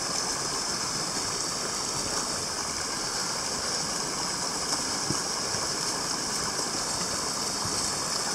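Small rocky woodland stream running steadily over stones, an even rush of water.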